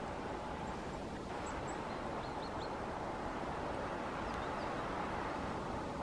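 Steady rushing outdoor background noise with a faint steady hum, and faint high calls of small birds: a few short ticks, then a quick run of three or four notes about two seconds in.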